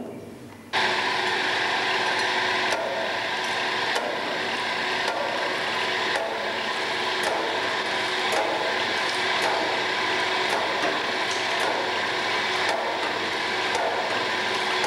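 Cheese-vat stirring machinery running with a steady mechanical noise and a faint hum, and a sharp click about once a second. It starts suddenly about a second in.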